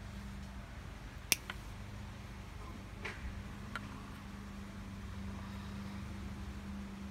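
Small scissors snipping at cast-net line wrapped around a turtle's leg: a few sharp clicks, the loudest about a second in, then a few fainter ones. Under it runs a steady low hum.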